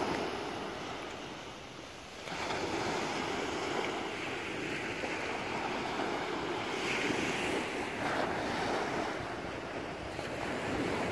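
Small waves breaking and washing up a pebble beach, with wind on the microphone. The surf eases briefly, then swells up again about two seconds in.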